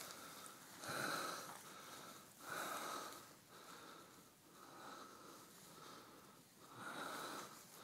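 A person breathing close to the microphone, a noisy breath about every second and a half.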